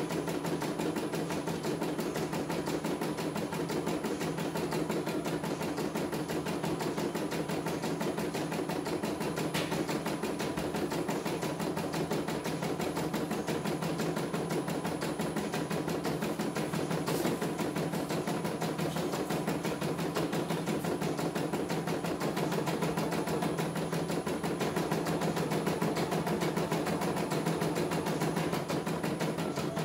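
CNY E900 portable computerized embroidery machine stitching a design, its needle running in a rapid, even rhythm of strokes over a steady motor hum.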